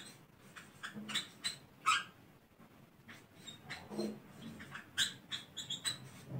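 Marker pen squeaking on a whiteboard in short, irregular strokes as words are written by hand.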